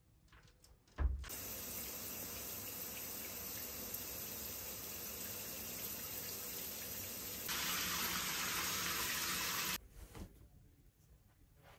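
Shower head spraying water: a steady hiss of running water that gets louder and brighter about three-quarters of the way through, then stops abruptly. It begins with a sharp low thump.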